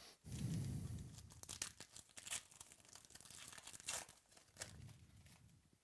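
Trading-card pack wrapper crinkling and tearing, with scattered small clicks from cards being handled.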